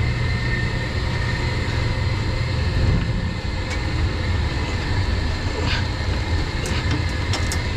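Steady low rumble of a commercial boiler room's running equipment, with faint steady whines over it. A few light knocks sound near the end as the heavy pump motor is handled.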